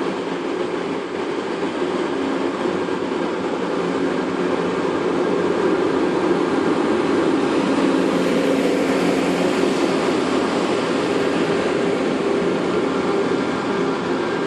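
Train moving through the station: a steady rolling rumble with a low hum, growing louder toward the middle and then easing slightly.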